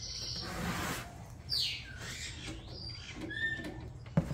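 Bird chirps and squeaky calls: several short high notes and a quick falling whistle, with a single sharp knock near the end.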